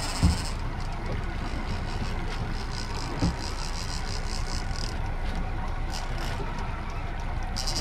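A 115-horsepower outboard motor running steadily at trolling speed, with water rushing past the hull. Two short dull thumps stand out, one right at the start and one about three seconds in.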